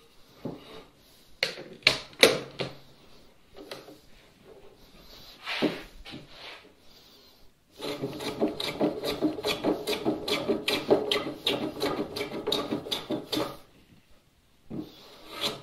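A few wooden knocks and clunks as the leg and plane are handled, then for about six seconds a hand plane taking rapid short strokes, about four a second, cutting a chamfer across the end edge of a pine bench leg.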